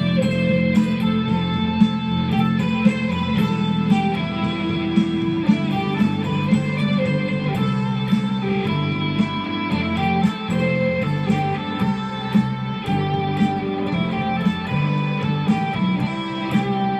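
Strat-style electric guitar playing a single-note lead melody, notes changing every fraction of a second over steady low ringing notes.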